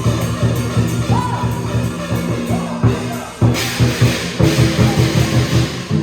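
Chinese dragon dance percussion music: rhythmic drumming under steady ringing tones, with a crash of cymbals for about a second midway.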